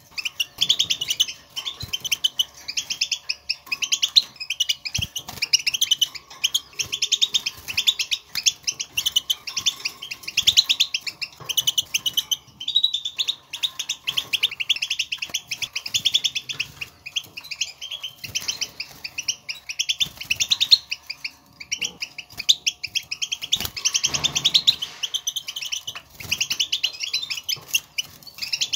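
European goldfinch chatter: a fast, continuous run of short, high twittering notes, with a brief lull a little before halfway. This is the contact chatter goldfinches use to call to one another.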